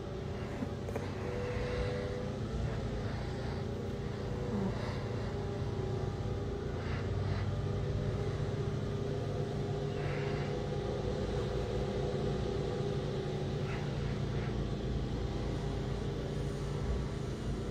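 Steady low background rumble with a faint hum, and a few faint brief sounds scattered through it.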